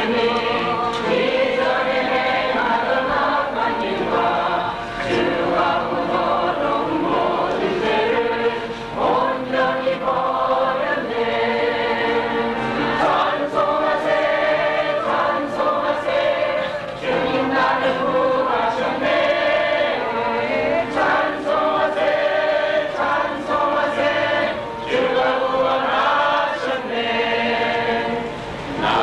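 A church congregation singing a hymn together in unison, in sustained phrases with short breaths between lines.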